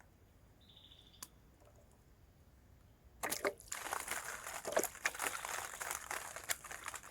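Near silence with a single sharp click, then about three seconds in a run of crinkling and crackling, like material being crumpled or handled, with many small clicks.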